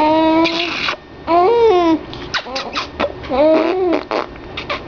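A mother making silly vocal noises for a baby: a long high held tone, then warbling glides, short squeaks and clicks, mixed with a baby's laughter.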